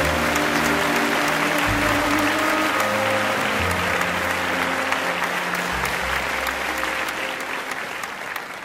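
Slow music with long held low notes, mixed with dense applause; both fade out near the end.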